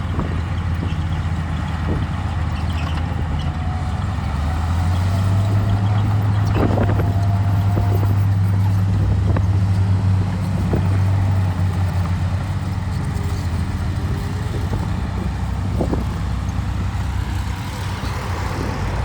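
Heavy diesel engine of earthmoving machinery running steadily under load. Its low drone grows louder between about five and eleven seconds in, with a few sharp knocks along the way.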